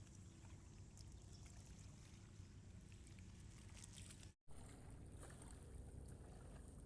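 Near silence: faint, steady low outdoor rumble, cut off completely for a split second about two-thirds of the way through.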